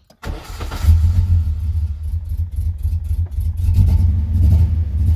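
1988 Nissan R31 Skyline's engine cranking briefly and catching just under a second in, then idling with a steady low rumble, heard from the driver's seat. It starts with the newly wired kill switch in the on position.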